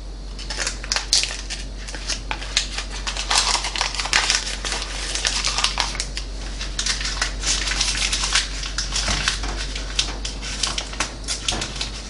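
Paper butter wrapper crinkling and rustling as it is peeled off a cold, refrigerated stick of butter, an irregular crackle of small sounds.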